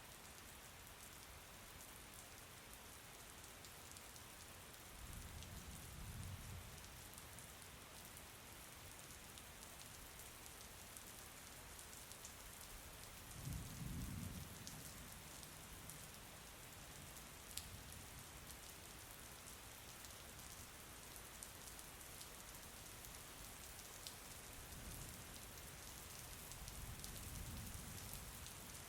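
Steady, faint rain falling, with scattered drop ticks and three soft low rumbles: about five seconds in, around the middle, and near the end.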